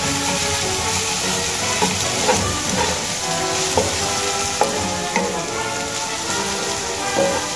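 Cubed potatoes sizzling as they fry in oil in a nonstick kadai, stirred with a wooden spatula, with a few sharp knocks of the spatula against the pan.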